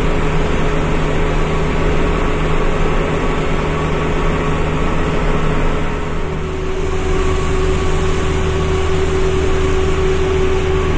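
Medium bus's engine and road noise heard from inside the cabin while cruising on a highway: a steady drone with a held hum, one tone of which grows a little stronger about halfway through.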